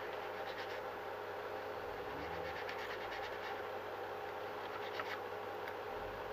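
Faint scratching of a hobby knife trimming a cutout in a model glider's plastic, a few short strokes over a steady background hum.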